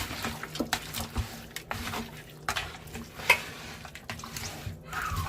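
Hands rubbing seasoning into raw chicken pieces: irregular wet squelching and rubbing, with a few light knocks of the container.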